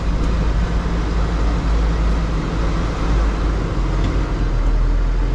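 Deutz tractor's diesel engine running steadily, heard from inside the cab as the tractor creeps forward across the field.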